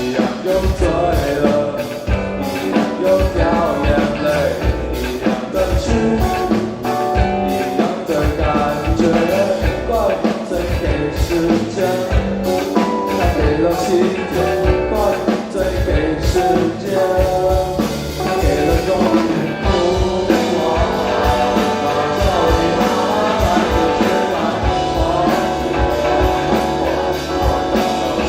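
Live rock band playing a song, with a drum kit keeping a steady beat under electric guitars and bass. The playing grows denser about two-thirds of the way through.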